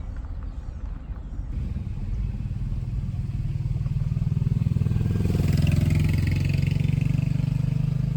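Motor vehicle engine running at low speed, growing louder over the first few seconds, then holding steady.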